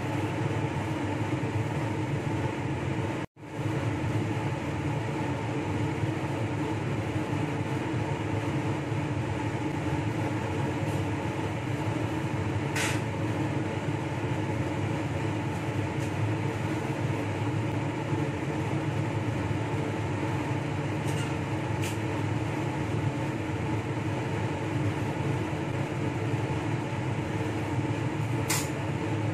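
Steady drone of a clean-air ventilation blower, with a few faint light ticks from small parts being handled. The sound cuts out for an instant about three seconds in.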